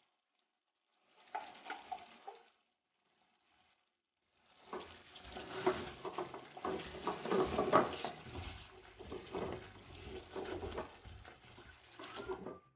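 A spatula stirring and scraping thick chicken curry in a nonstick pan, with the masala sizzling as it fries down. A brief burst comes about a second in, and steady stirring strokes run from about four and a half seconds in.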